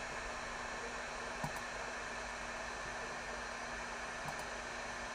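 Steady hiss of microphone and room background noise with a faint low hum, broken by two faint short clicks, about one and a half and four seconds in.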